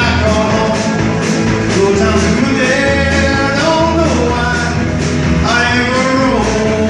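Country-rock music, with a sustained melody line over a steady beat.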